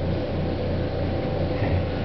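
A steady low rumble with a faint constant hum above it, typical of the background machinery and air of an indoor pool hall. No distinct splashes or knocks stand out.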